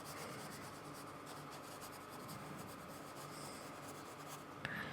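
Faint, repeated strokes of a paintbrush working acrylic paint, bristles rubbing on the surface.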